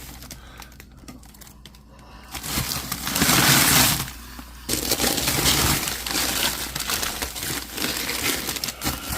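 Plastic-wrapped frozen food packages rustling and crunching as they are handled and moved about in a freezer, with a louder stretch of about two seconds starting some two and a half seconds in.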